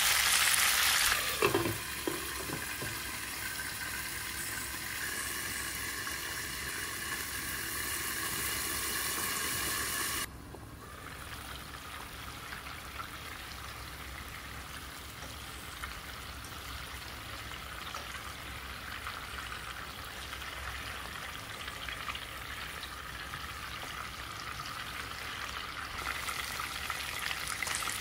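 Food sizzling and frying in a hot pan, a steady high hiss. It drops after the first second, falls away suddenly about ten seconds in, and grows louder again near the end.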